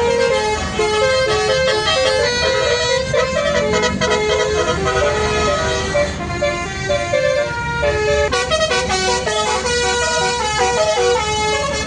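Basuri 'telolet' multi-tone horn on a bus playing a melody, several notes sounding at once and stepping up and down in pitch without a break, with a vehicle engine running underneath.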